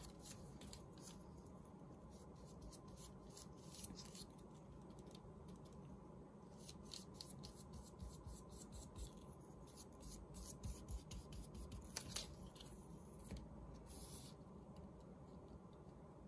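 Faint rustling, rubbing and light ticking of paper strips being handled, laid down and pressed flat by hand, with a couple of slightly louder rustles in the last few seconds.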